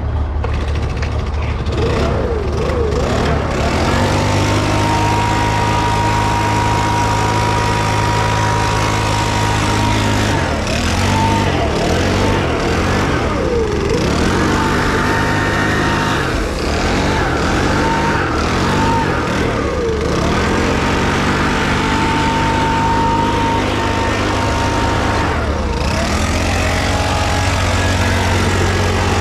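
Cordless blower whining, its motor speed dropping and picking up again several times as the trigger is eased and squeezed, over the steady running of a Bizon combine harvester's SW 400 diesel engine.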